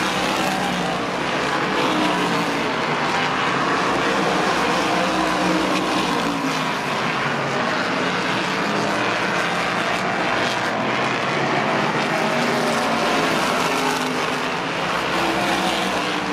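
A field of oval-track race cars running laps together. Their engines make a loud, continuous drone of several overlapping notes that rise and fall as the cars go around the track.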